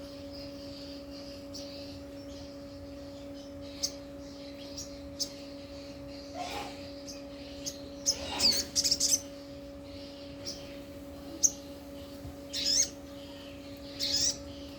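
Little spiderhunter (sogok ontong) giving short, sharp, high calls at irregular intervals, with a quick run of calls about eight to nine seconds in. A steady low electrical hum runs underneath.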